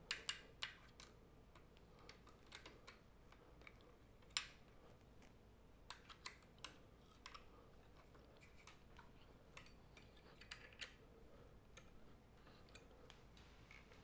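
Faint scattered clicks and taps of small metal parts being handled: a hex key and screws worked as a metal dovetail saddle is fastened onto a telescope mount. The sharpest clicks come right at the start and about four seconds in.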